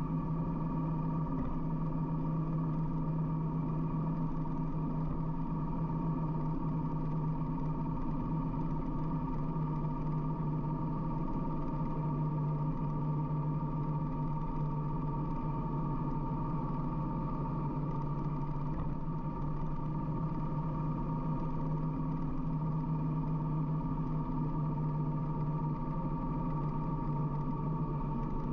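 Harley-Davidson motorcycle's V-twin engine running steadily at an even cruising speed, with a constant pitch and no changes in revs.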